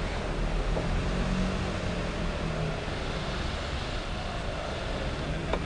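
Street traffic noise: a motor vehicle engine running steadily close by, over a general hum of city traffic.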